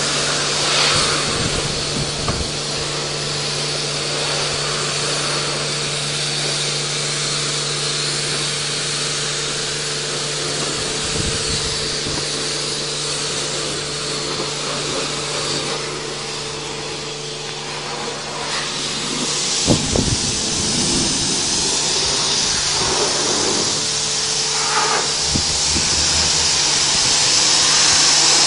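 Car-wash pressure washer wand spraying water, a steady hiss over the steady hum of the pump.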